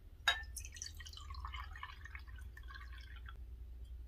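Water poured from a thin fluted glass carafe into a matching glass cup, with a sharp click as the pour begins. The splashing fill lasts about three seconds, then stops.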